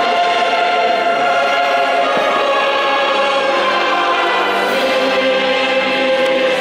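Choral music with orchestra, the choir holding long sustained notes at a steady, loud level.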